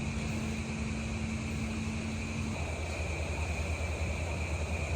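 Steady mechanical hum of barn machinery with a constant noisy whir. A humming tone cuts off about halfway through.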